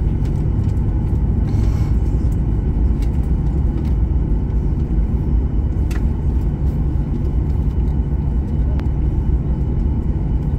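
Steady low rumble heard inside a jet airliner's cabin as it rolls on the ground after landing, with engine noise and the rumble of the wheels on the pavement.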